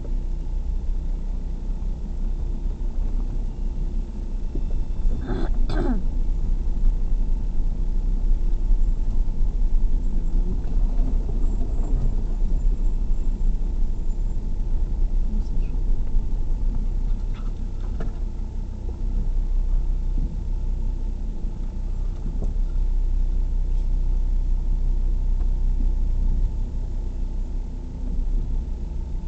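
Inside the cab of an off-road vehicle driving slowly on a rough dirt track: the engine and tyres run with a steady low rumble. A couple of sharp knocks sound about five and a half seconds in, and fainter ones come later.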